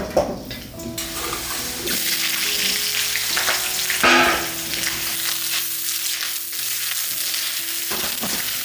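Garlic and radish stir-frying in rapeseed oil in a pan over a wood stove: a steady sizzle that grows louder about two seconds in, with a couple of knocks of the spatula against the pan, one right at the start and one about four seconds in.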